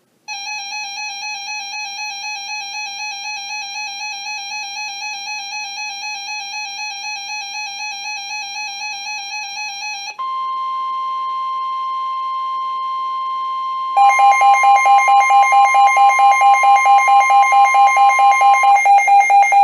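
An alert alarm warbling in an even pulse, followed about ten seconds in by the NOAA Weather Radio 1050 Hz warning alarm tone, a steady high tone. About four seconds later the receiver's alarm comes back louder as rapid beeping over the steady tone, which stops shortly before the end.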